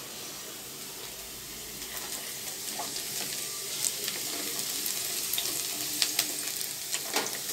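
Chopped onion sizzling in hot oil in a wok, with the taps and scrapes of a wooden spatula stirring it from about two seconds in.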